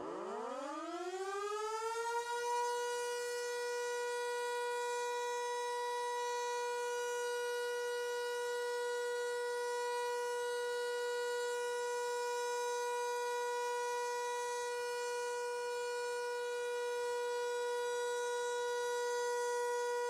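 Civil defense siren winding up from a low pitch over about two seconds, then holding one steady tone instead of wailing: the all-clear signal.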